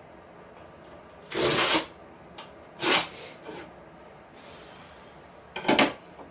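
Three short scraping rubs, as wood and tools are handled during desk construction.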